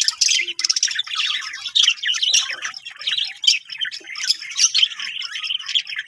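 A flock of caged birds chirping and chattering, many short, high calls overlapping without a break.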